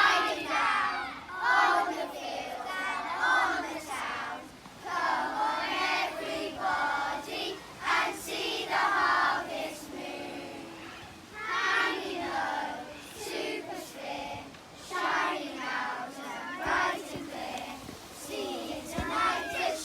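A class of primary-school children singing a song together.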